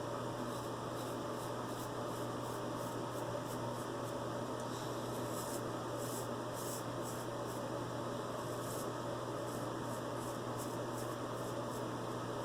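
Razor blade scraping through lathered stubble in many short, irregular strokes, over a steady low hum.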